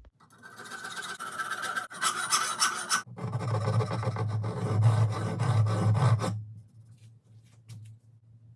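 Rasping, scraping sound of steel being cut while a screw hole is worked in a lathe tool blank. A steady low hum joins about three seconds in, and the cutting stops about six seconds in.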